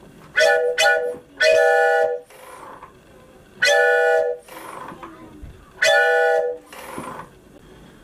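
Four-pipe bellows-style train whistle with brass pipes, blown by pulling its rope: a chord of several steady tones sounded in five blasts, two short ones then three longer ones about two seconds apart.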